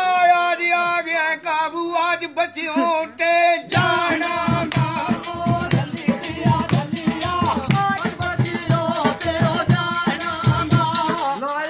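Punjabi mahiya folk song: a voice holds wavering sung notes, then about four seconds in a fast percussion beat with rattling strokes comes in under the melody.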